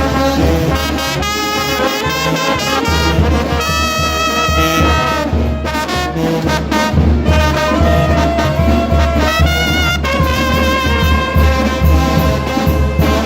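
A Mexican brass band playing: trumpets and trombones carry the melody with some vibrato over a steady low bass beat.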